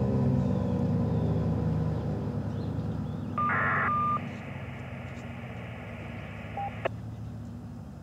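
Federal Signal 2001-SRN rotating siren at the tail of its wind-down: a low, falling drone that fades out over the first couple of seconds. About three and a half seconds in comes a short burst of electronic touch-tone-like beeps, then a brief single beep and a click a few seconds later.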